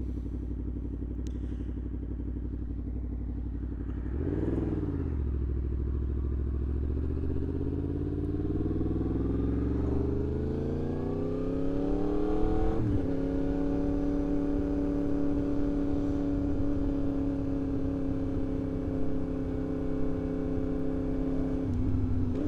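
2024 Yamaha MT-10's crossplane inline-four with a RaceFit Growler X aftermarket exhaust. It idles steadily, gets a quick blip of the throttle about four seconds in, then pulls away with the engine note climbing steadily. About halfway through there is an upshift with a sudden drop in pitch, after which it cruises at an even pitch.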